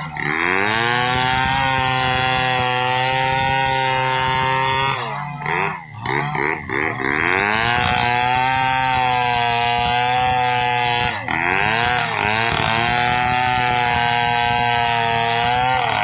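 Chainsaw running at high revs while ripping lengthwise through hard damar laut wood. The engine note holds steady, then sags in pitch and level about five to seven seconds in and briefly again near eleven seconds before climbing back as the chain bites and frees in the wood.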